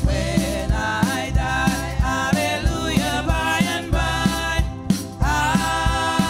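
Gospel song sung live into microphones: a woman's lead voice with backing singers, over a steady drum beat and bass accompaniment.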